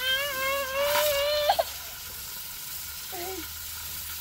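A high-pitched voice holds one long, steady 'aaah' for about a second and a half, then a brief short vocal sound follows about three seconds in.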